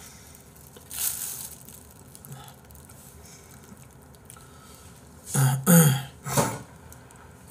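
A man's voice makes three short throat sounds in quick succession near the end, like clearing his throat, after a brief breathy noise about a second in.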